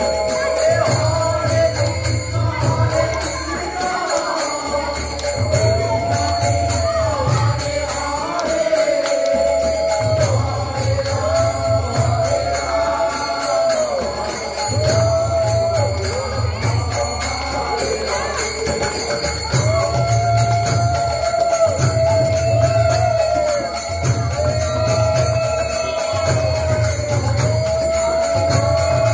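Devotional group singing of a repeated chant, kirtan-style, over a pulsing drum and steadily jingling hand cymbals.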